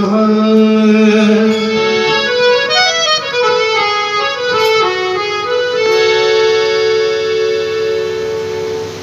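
Harmonium playing a melody of held reed notes that step from note to note, settling on one long held note about six seconds in.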